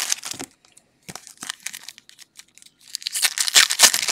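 Foil wrappers of 2014 Bowman Draft card packs crinkling and tearing as the packs are ripped open by hand. Quieter scattered crackles in the middle give way to a loud burst of crinkling about three seconds in.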